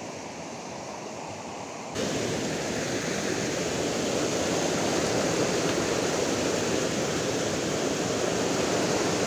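Stream water rushing over rocks: a steady wash of noise that jumps abruptly louder about two seconds in.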